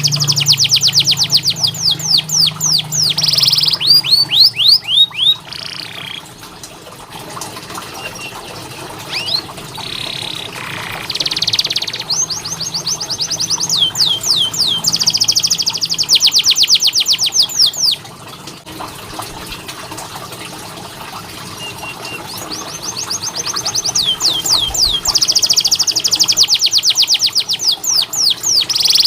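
Domestic canary singing in long rolling trills, fast runs of repeated high notes. The song comes in loud bouts at the start, in the middle and near the end, with softer, scattered notes between.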